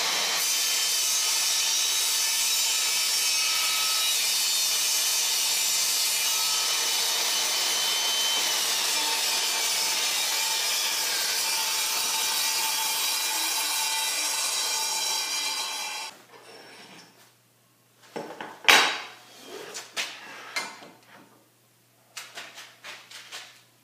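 Table saw running, its blade cutting a kerf through a melamine-faced particle board sled base. The saw noise cuts off about 16 seconds in, followed by a few knocks and clicks of handling on the sled.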